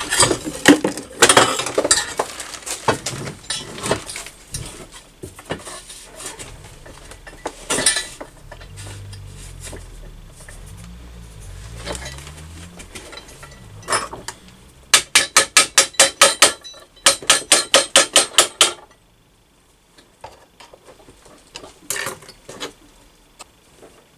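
Metal clattering and knocking as a wire-wrapped baffle is worked into a motorcycle exhaust pipe. Two quick runs of rapid metallic strikes follow, about eight a second, each lasting a couple of seconds.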